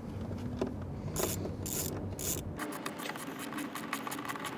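Hand ratchet with a 7 mm socket clicking as it turns in the screws holding the plastic instrument cluster bezel. A few scratchy strokes come first, then a fast run of clicks through the second half.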